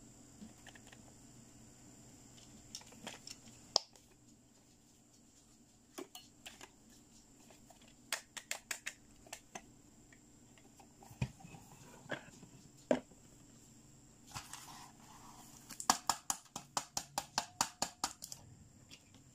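Hard plastic toys being handled, giving scattered clicks and taps, then a quick run of a dozen or so clicks near the end.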